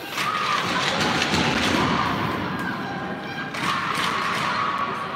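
A group of voices shouting together in two loud cheers, the second starting about three and a half seconds in.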